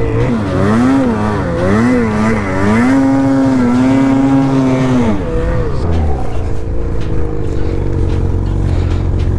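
Ski-Doo Freeride's 850 two-stroke engine revving up and down in deep snow, then held high for a couple of seconds as the sled bogs down and gets stuck. About five seconds in it drops to a steady idle.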